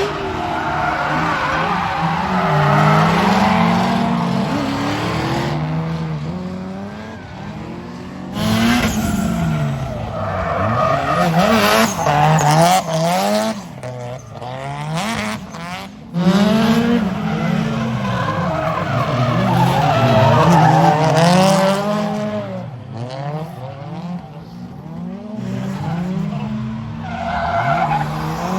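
Drift cars sliding: engines revving up and down hard over tyres squealing and skidding. The sound changes abruptly a couple of times.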